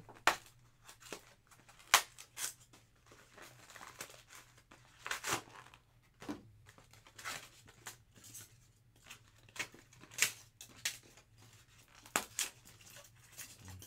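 Trading-card box packaging being handled and opened by hand: scattered rustles and short sharp clicks, the loudest about two seconds in.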